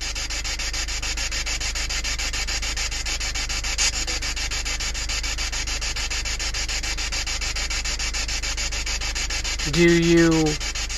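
A steady rasping hiss with a fast, even pulse over a constant low rumble. Near the end comes a short, low murmured voice.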